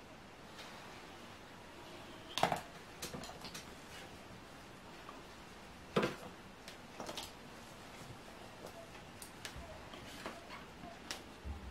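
Makeup tools being handled, picked up and set down on a table: scattered light clicks and knocks, the loudest about two and a half seconds in and another about six seconds in.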